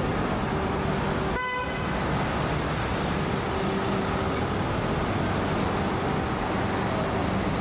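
Busy city-street traffic: a steady rumble of engines and road noise, with one short vehicle horn toot about a second and a half in.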